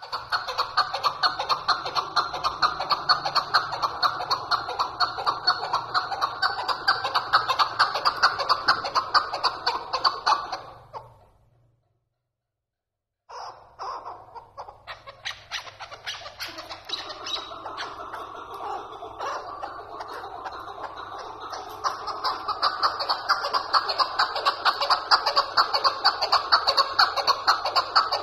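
Caged chukar partridge calling a loud, rapid, rhythmic cackle over and over. The calling fades out about eleven seconds in, cuts to silence for about two seconds, then starts again and grows stronger.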